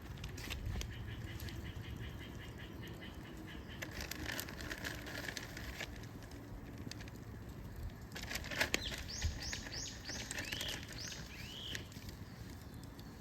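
A songbird calling: a quick run of about five high falling notes, then two lower arched notes. Scattered light clicks and knocks can be heard throughout.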